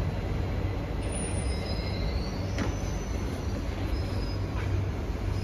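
Cabin sound of an SMRT C151B metro train car running: a steady low rumble with faint high wheel squeals, one rising briefly about a second in, and a couple of sharp knocks.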